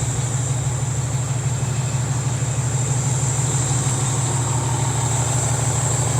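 An engine idling steadily, with a constant low hum and a steady high-pitched whine above it.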